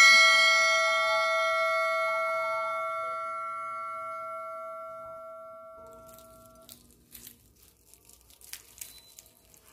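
A bright, chime-like chord of several steady tones rings out and slowly fades over about six seconds. Near the end come faint, crisp crackles from the flaky fried paratha being pulled apart by hand.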